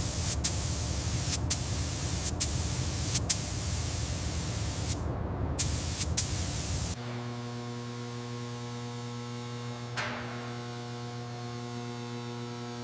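A steady, spray-like hiss with a heavy low rumble and several sharp clicks, cutting off suddenly about seven seconds in; then steady synthesizer music.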